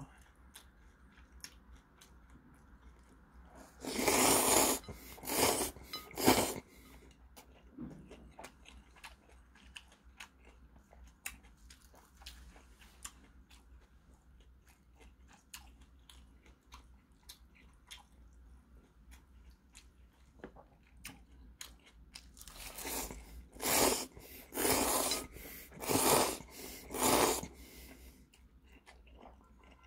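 Close-miked slurping of ramen noodles: a run of about four loud sucking draws a few seconds in, and another run of five or six in the last third. Between them, quiet chewing and small wet mouth clicks.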